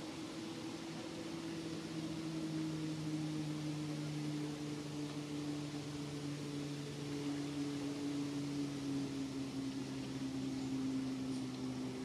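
A distant engine drone with a steady hum that slowly falls in pitch as it passes, over a constant outdoor hiss.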